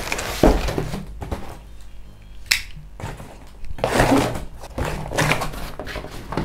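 Large cardboard shipping box laid down flat on a table with a thump about half a second in, then handled. There is a sharp tap about halfway, then a couple of seconds of cardboard scraping and rustling as it is pushed and slid across the tabletop.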